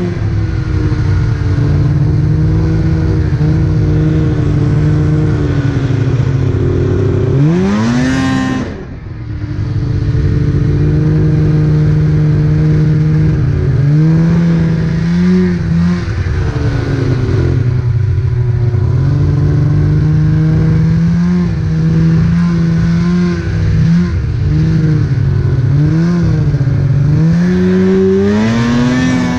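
Snowmobile engine running under throttle while riding through snow. It holds a steady pitch, climbs sharply about a quarter of the way in, and then drops briefly as the throttle is let off. It rises and falls several times later and climbs again near the end.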